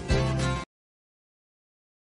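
Background music that cuts off abruptly well under a second in, leaving total silence.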